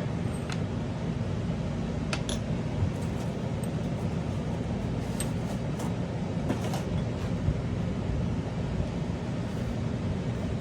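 Steady low background hum with a few faint clicks of small marker parts being handled during re-lubing and reassembly.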